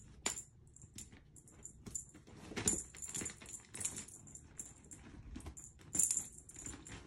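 A small bell jingling in quick, irregular shakes with light clicks, as a cat wand toy is waved. The loudest jingles come nearly three seconds in and again near the end.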